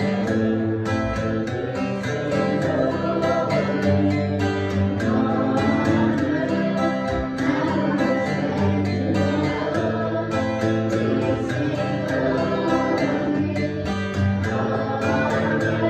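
Music: strummed and plucked acoustic guitar with singing.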